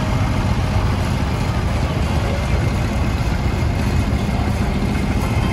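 Vintage farm tractor engine running steadily at low speed as the tractor drives slowly past close by, with a deep, even exhaust beat.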